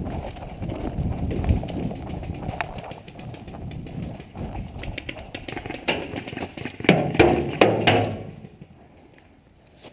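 Running footsteps thudding on grass and dirt, with the rustle and knock of carried gear. About seven seconds in come a few louder knocks, then the sound drops away as the runner stops.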